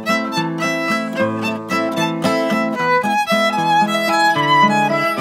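Violin and acoustic guitar playing together in a quick-moving duet, with many short notes in a row.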